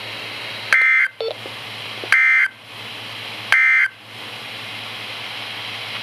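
A Midland NOAA Weather Radio receiver plays the three short end-of-message SAME data bursts, which signal the end of the warning broadcast. Each burst is a harsh two-tone digital screech, and they come about a second and a half apart. Steady radio hiss fills the gaps between them.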